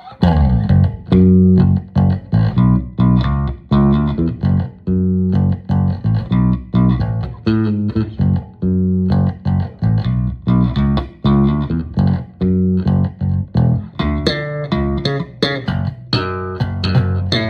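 Electric bass guitar played solo through a Phil Jones Bass CAB-47 speaker cabinet: a line of short plucked notes, growing denser and fuller about two-thirds of the way through.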